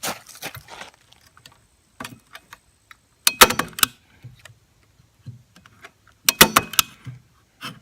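Two short bursts of sharp metallic clicking and rattling, about three seconds apart, from small hard objects being handled, with faint scattered ticks between them.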